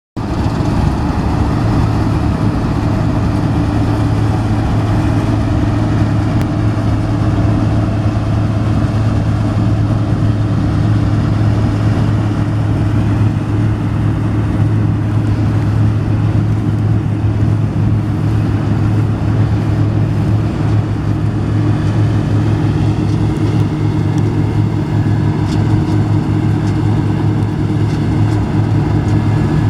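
Combine harvester running steadily at working speed during the wheat harvest: a loud, even diesel-engine drone with a constant low hum.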